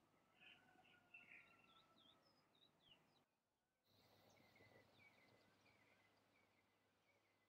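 Near silence with faint, scattered bird chirps. The sound drops out completely for about half a second a little over three seconds in.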